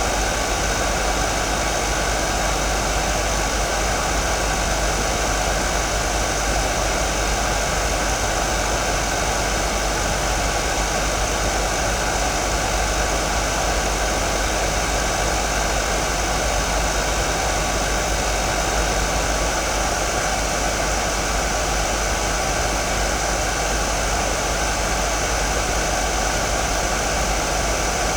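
Hair dryer running continuously: a steady, unchanging rush of blown air with a few faint steady tones from its motor and fan.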